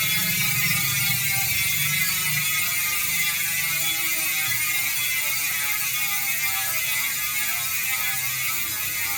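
Hassns Pro7 bicycle hub freewheeling: the freehub's ratchet gives a loud, rapid clicking buzz. Its pitch falls slowly as the wheel spins down.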